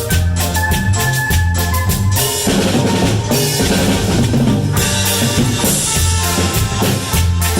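Cumbia band playing an instrumental passage with no singing: a steady bass line and keyboard over a drum kit, the percussion busier for about two seconds in the middle.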